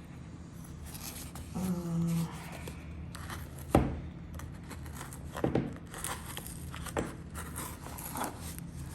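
Packaging being handled: crinkling and rustling of a mailer, with one sharp knock about four seconds in and a few lighter taps and rustles after it.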